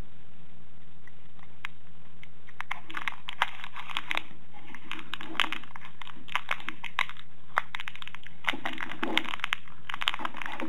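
Thin clear plastic bag around a set of earphones crinkling as fingers work it open, in irregular bursts of crackles that begin about two seconds in. A steady low hum runs underneath.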